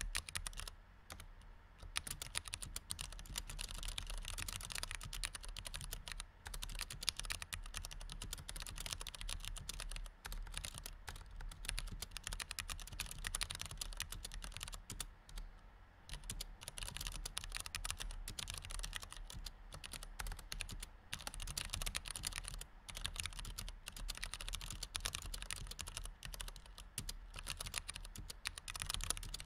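Continuous typing on a low-profile chiclet-key computer keyboard: a dense run of light key clicks, with brief lulls about a second in and again around halfway.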